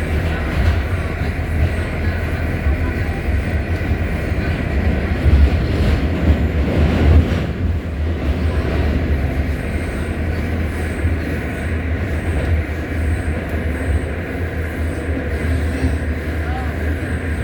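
R68 subway car's traction motors howling as the train runs at speed: a steady high motor whine over the low rumble of wheels on rail, swelling louder about six seconds in.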